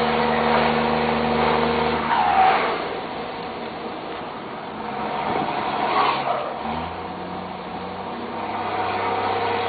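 Volkswagen Constellation truck's diesel engine running with a steady drone. The drone drops away about two seconds in, and a lower-pitched drone comes back near seven seconds in.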